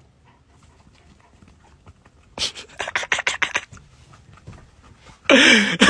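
Dog panting in a run of quick breaths, followed near the end by a loud, wavering voice-like sound.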